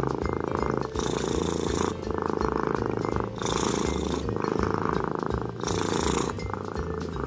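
Domestic cat purring close to the microphone: a steady rapid rattle that swells and eases in cycles of about a second, one with each breath in and out.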